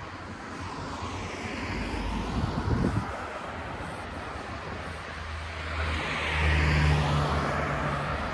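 Cars driving past on the street: tyre and engine noise swells as one passes about three seconds in, then again as another goes by with a low engine hum near the end.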